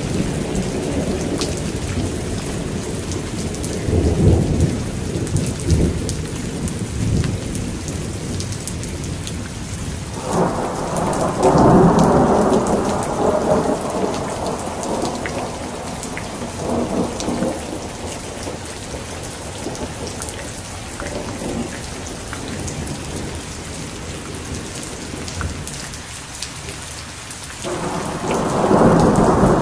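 Heavy rain falling steadily, with thunder rolling over it several times. A low rumble comes about four seconds in. Louder peals break in suddenly about ten seconds in and again near the end, each rolling on for several seconds.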